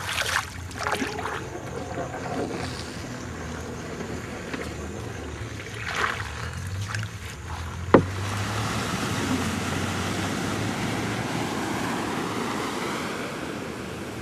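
Experimental film soundscape: scattered swishes and knocks, a single sharp click about eight seconds in, then a steady wash of noise like surf over a low hum.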